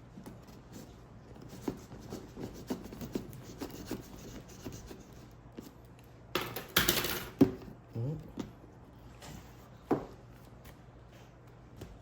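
Scissors and hands working on cardboard packaging: light clicks, rubs and scratches, then a loud burst of packaging noise about six seconds in, lasting about a second, and a sharp click a few seconds later.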